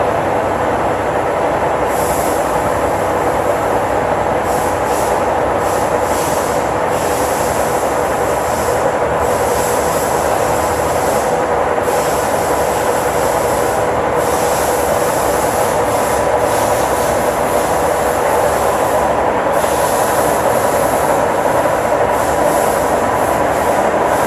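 1955 King 52-inch vertical turret lathe running, a loud, steady machine noise with a constant whine over a continuous rumble.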